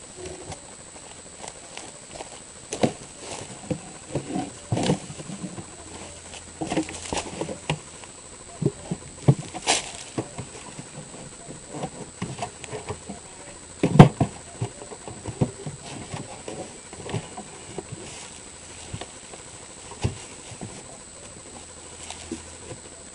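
Wooden beehive being set down and handled: scattered knocks, bumps and scuffs of wood, with one sharp, loud knock about halfway through.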